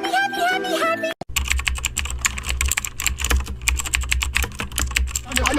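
Rapid, continuous typing on a computer keyboard over a steady low hum, starting about a second in after a short musical jingle cuts off.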